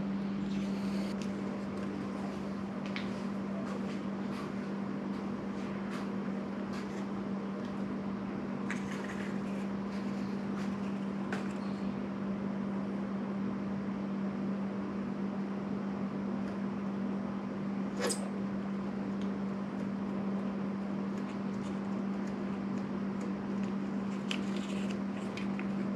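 A steady low hum with faint rustling and light taps from handling an adhesive tank pad being positioned, and one sharp click about 18 seconds in.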